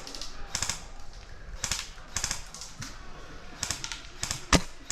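Airsoft guns firing short rattling bursts of clicks, about five of them a second or so apart, with one sharp single crack near the end.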